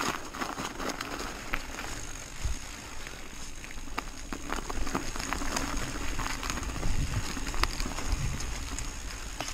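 Mountain bike (a Trek Fuel EX 7 29er) riding over gravel and dirt trail: steady tyre noise on grit, with frequent sharp clicks and rattles from the bike over bumps and an uneven low rumble.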